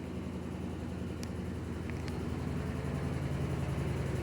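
Washing machine running and shaking hard: a steady low hum with a fast, even pulsing, growing slightly louder.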